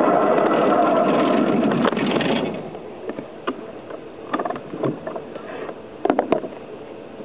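Petrol-electric model Sik locomotor running on miniature track, a steady mechanical drive and wheel noise that falls away sharply about two and a half seconds in as it comes to a stop. A few scattered clicks and knocks follow.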